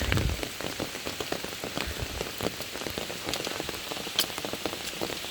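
Steady rain, with many separate drops ticking close by. A low rumble of wind buffeting comes right at the start and again at the end.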